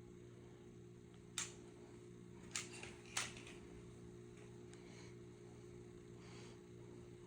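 Near silence with a faint steady electrical hum, broken by three light clicks and taps in the first half as the pistols are handled.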